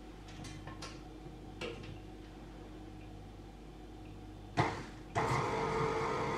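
Tilt-head stand mixer with a flat beater and steel bowl: a few light clicks and knocks as it is handled, then about four and a half seconds in a short loud burst and the motor starts, running steadily with a hum and whine.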